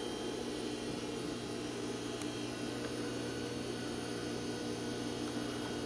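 Steady low hum and hiss of room tone, with no stitching heard.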